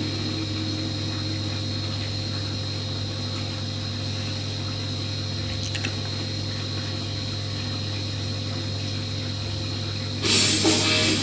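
Saltwater aquarium's pump humming steadily with water running through the rear filter. Guitar music cuts in near the end.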